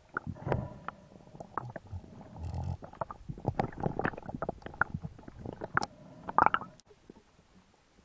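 Underwater sound through a camera housing: muffled knocks, clicks and gurgling bubbles as a freediver handles and loads a roller speargun, pulling its rubber bands. The knocks are densest and loudest about six seconds in, then it goes quieter near the end.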